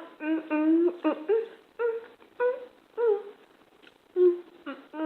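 A woman's voice making a string of short, pitch-gliding hums and moans of enjoyment with food in her mouth, about eight in all, the first drawn out for nearly a second.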